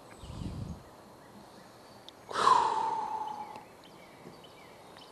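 A person's breathy sigh about two and a half seconds in, the loudest sound, sliding slightly down in pitch and holding for about a second. A brief low rumble comes just before, and faint bird chirps sit in the background.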